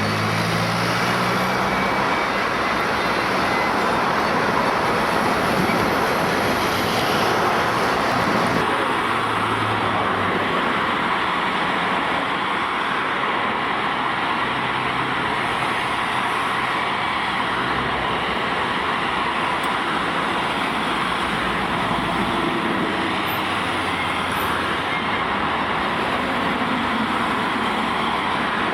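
Steady, loud road-traffic noise, with the low hum of vehicle engines coming and going. The sound changes abruptly about nine seconds in, losing some of its hiss.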